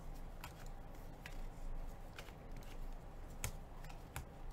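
Trading cards being flipped through one at a time in gloved hands, with a few soft, irregularly spaced clicks as cards slide off the stack.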